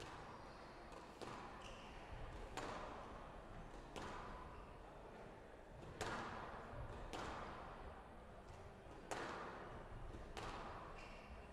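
Squash rally: the ball struck by racquets and hitting the walls, a series of sharp knocks every second or two, each echoing briefly.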